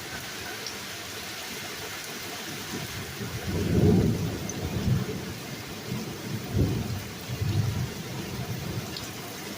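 Steady rain falling, with a roll of thunder that starts about three and a half seconds in, is loudest at first and rumbles on in uneven swells for several seconds.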